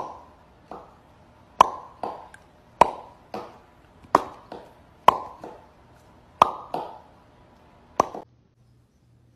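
A run of about a dozen sharp, hollow plops, often in pairs about half a second apart, each with a brief ringing tail. They stop about eight seconds in.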